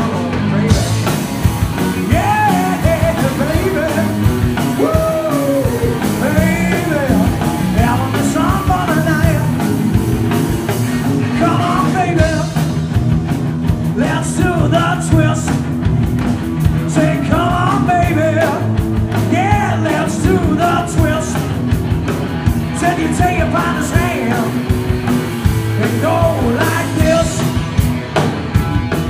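Live rock band playing a song: drums, bass and guitars with a bending lead melody over them.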